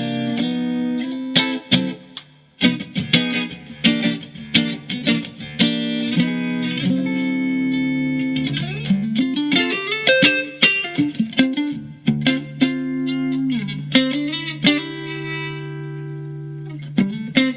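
Mexican-made Fender Stratocaster electric guitar in drop D tuning, played after a setup: picked notes and ringing chords, with a few slides between notes.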